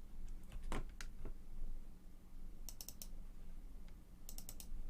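Clicking at a computer: a few separate clicks in the first second or so, then two quick runs of light ticks, three or four in each, near three seconds and again past four seconds.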